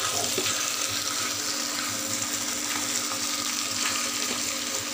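Chicken pieces in curry paste sizzling steadily in a wok while they are stir-fried slowly with a metal spatula, with faint scrapes and taps of the spatula against the pan now and then.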